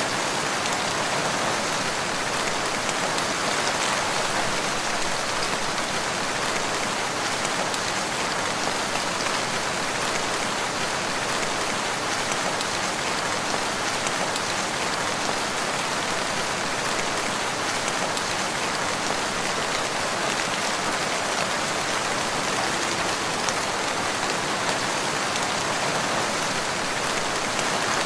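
Steady rain falling, an even, dense hiss of many fine drops that keeps the same level throughout.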